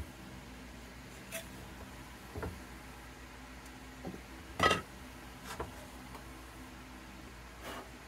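Light knocks and taps as a braced cedar guitar top and small items are handled on a plywood workbench, about half a dozen in all, the loudest about halfway through.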